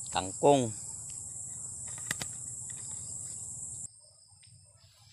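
Steady, high-pitched chirring of insects, crickets by their sound, in the vegetation. It cuts off suddenly about four seconds in.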